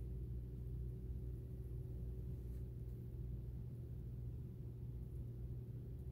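Steady low hum with a fainter, higher steady tone over it.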